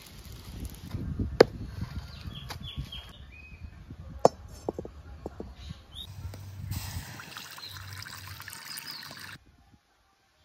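Water being poured into a steel kadhai on a brick wood-fire stove, a steady splashing hiss for about three seconds that stops abruptly. Before it come two sharp knocks over a low rumble.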